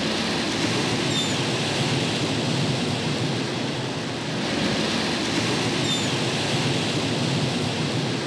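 Ocean surf: a steady rush of breaking waves that eases briefly about four seconds in and builds again, with a faint short high chirp about a second in and again near six seconds.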